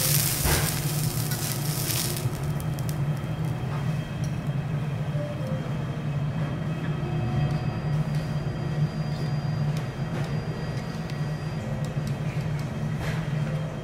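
Thick wagyu steak sizzling on a steel teppanyaki griddle at the start, the sizzle dying away after about two seconds. A steady low hum runs under it throughout.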